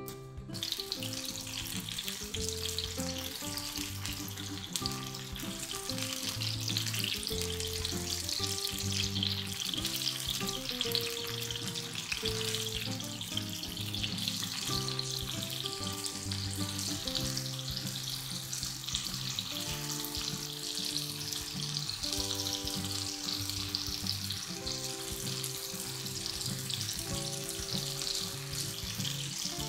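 Tomato slices and mushrooms frying in hot oil in a frying pan, a steady sizzle, with background music underneath.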